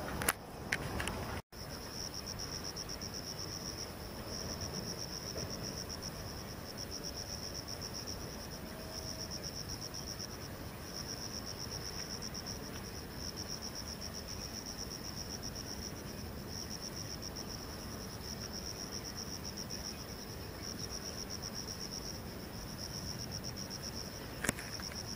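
A steady, high-pitched insect trill, rapidly pulsing, with a few short breaks, over a faint low rumble.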